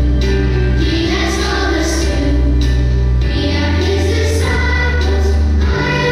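A choir singing a Christian song over instrumental accompaniment, with long held bass notes underneath.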